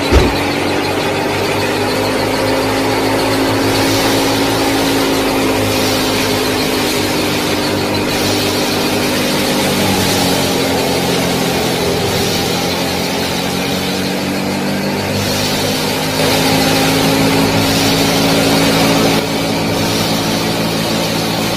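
Small motor running steadily, a droning hum whose pitch drifts a little; a short click at the very start, and it runs louder for about three seconds near the end.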